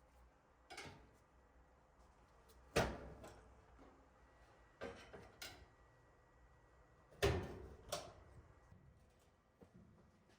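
Sharp knocks and clunks from parts of a top-load washer's cabinet being handled during a repair, about six in all, the loudest about three seconds and seven seconds in.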